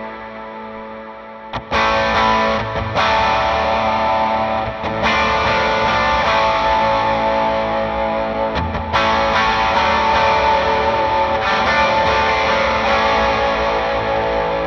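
Overdriven electric guitar played through a Fractal FM3 amp modeler with a York Audio Matchless cabinet impulse response. About five chords are strummed, each left to ring and sustain into the next.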